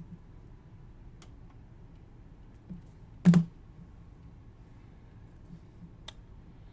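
A few isolated clicks and taps over quiet room tone, the loudest a single sharp tap about three seconds in.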